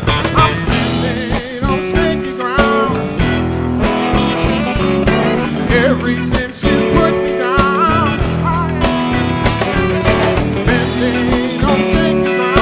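Band music: a guitar lead with bent, sliding notes over bass and drums.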